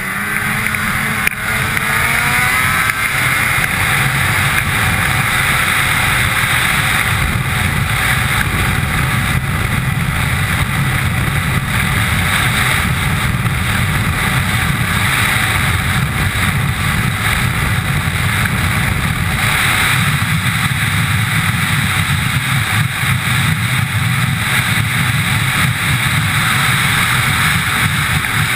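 2003 Ski-Doo MXZ Renegade 800 snowmobile's two-stroke twin engine accelerating hard, rising in pitch over the first few seconds. It then runs loud and steady at high speed, and its pitch begins to drop near the end.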